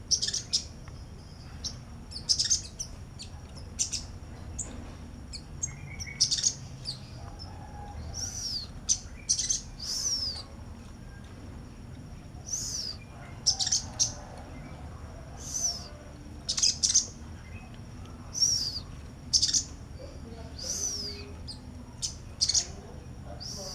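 Sogok ontong (little spiderhunter) calling: sharp, high chirps repeated every second or two, some as quick falling slurs.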